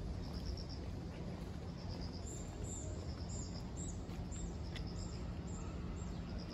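Outdoor ambience: a steady low hum with birds chirping high overhead, short rapid trills about once a second and, from about two seconds in, quick falling chirps. A few faint clicks of a small dog's claws on stone paving.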